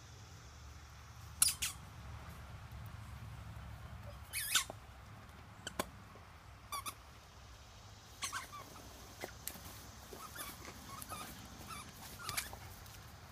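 Short squeaks from a dog's plush squeaky toy, scattered about a dozen times and loudest near the start, as the dog presses and rolls on it in wood-chip mulch.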